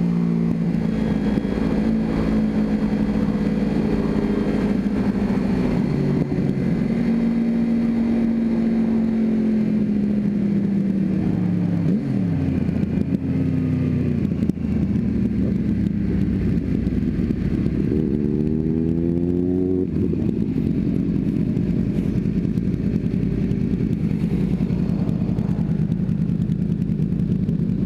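Sport bike engine and wind noise heard from a helmet camera at highway speed. The engine note slowly winds down over the first dozen seconds, revs up sharply around eighteen seconds in, then gives way to a steady rushing noise with no clear engine tone.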